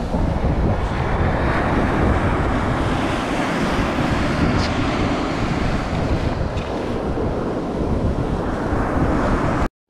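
Wind buffeting the microphone over surf breaking and washing up a sand beach, a steady dense rush. The sound cuts out completely for a moment just before the end.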